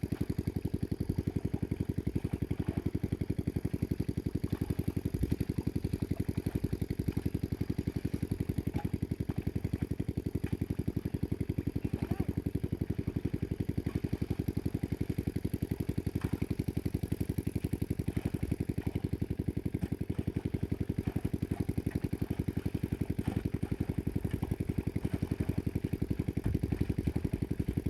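A small engine running steadily at a constant speed, with a rapid, even beat.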